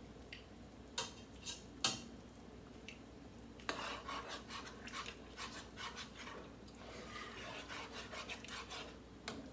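Cookware and a utensil clinking: a few separate clinks in the first two seconds, then a run of quick tapping and scraping from about four seconds in, as a utensil works in a pot.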